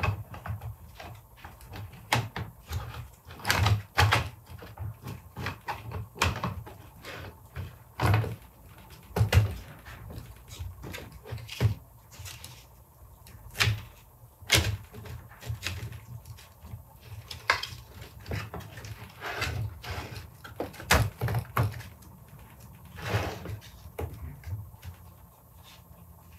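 Irregular clicks, taps and knocks of small hard 3D-printed plastic crown pieces and tools being picked up, fitted together and set down on a workbench during gluing, with short scrapes between them.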